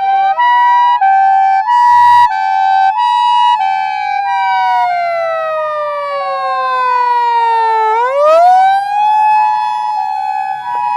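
Two emergency sirens sound together. One is a Japanese ambulance's two-tone hi-lo siren, switching back and forth between two pitches. Over it runs a second vehicle's wailing siren, which rises, slides slowly down, and climbs back up about eight seconds in, with a short burst of noise about two seconds in.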